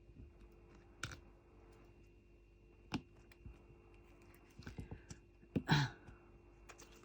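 Sparse light clicks and taps of a diamond-painting drill pen picking up drills and pressing them onto the sticky canvas, with a small cluster of taps near five seconds in. A brief throat or breath sound comes just after that.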